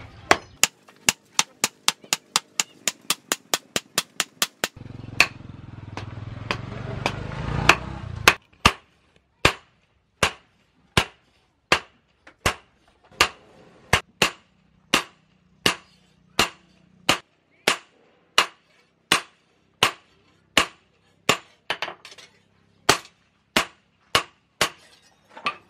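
Hand hammer striking a leaf-spring knife blade on a steel post anvil: quick blows about four a second at first, then after a few seconds of low rumbling noise, evenly spaced single blows a little more than one a second.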